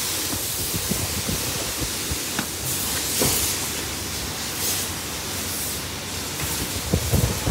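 A steady hiss, with faint small clicks and scrapes from a screwdriver turning a screw in a plastic dashboard panel.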